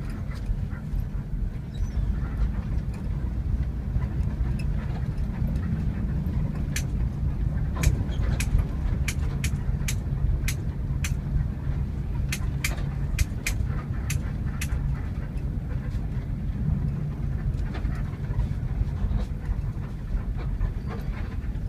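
Cabin sound of a moving passenger bus: the engine's low steady drone with road noise. From about seven seconds in, a run of sharp ticks, roughly two a second, goes on for about eight seconds.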